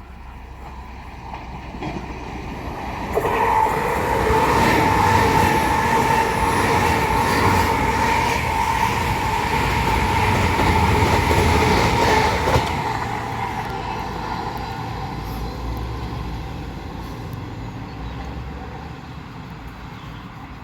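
A train passing close by. Its noise builds from about two seconds in and stays loud for about nine seconds, with a steady whine over the rumble, then fades away.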